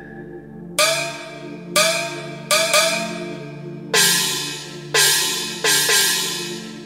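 Metal percussion crashes, about eight strikes, some in quick pairs, each ringing out and fading slowly. A low sustained musical drone plays beneath them.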